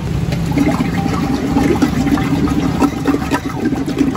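Running water with a steady low hum beneath it and scattered small clicks.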